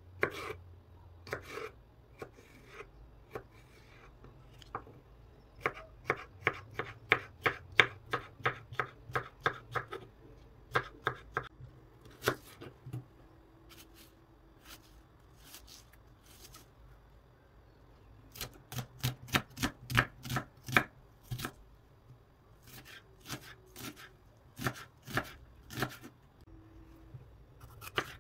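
A kitchen knife cutting vegetables on a wooden cutting board: short, sharp knife strikes against the board, in quick runs of about four a second with pauses between them.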